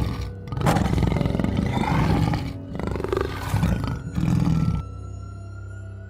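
Tiger roaring: a run of loud, rough roars that cut off suddenly a little before the end. Background music plays underneath and continues after the roars stop.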